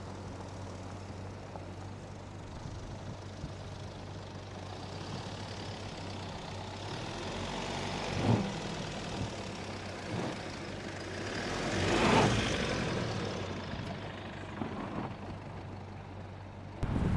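Mercedes-Benz GLB 200 d's four-cylinder diesel engine running at low revs as the SUV crawls over loose gravel mounds. The tyres crunch and knock on the stones a few times, and the engine and tyre noise swell to their loudest about twelve seconds in.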